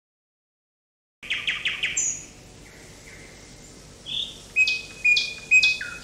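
Eurasian nuthatch calling: short, sharp high notes, first a quick run of four starting about a second in, then a pause and a few spaced calls near the end.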